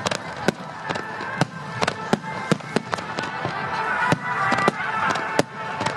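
Aerial fireworks bursting in a rapid, irregular barrage: sharp bangs several times a second, over a continuous crackle.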